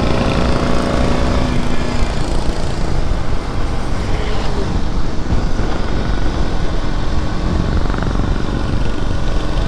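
Motorcycle riding under way, its engine running steadily under heavy wind rush on the camera microphone. A steady engine note is clear for the first two seconds, after which the wind noise covers most of it.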